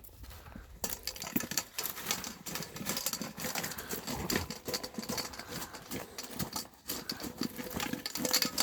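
Blue heeler and Leonberger puppies eating in a feeding frenzy: rapid, dense chewing, smacking and clicking that starts about a second in and keeps up without a break.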